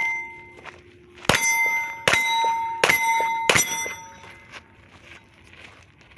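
Pistol shots striking steel targets: four sharp cracks, each followed by the clear ringing of a hit steel plate, about one every three-quarters of a second. The ring of one more hit fades at the start.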